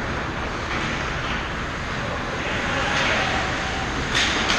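Ice hockey skates scraping and carving on the ice over a steady wash of rink noise, with two sharp clacks about four seconds in.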